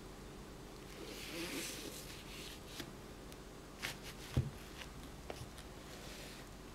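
Faint handling noise of football boots on a drawstring boot bag: rustling as a hand moves over them, a few light clicks, and a single soft thump a little past four seconds in as a boot is shifted.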